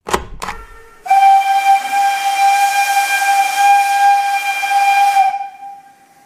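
Intro sound effect: two sharp clicks, then a loud, steady whistle over a strong hiss for about four seconds, which cuts off and leaves a faint fading tone.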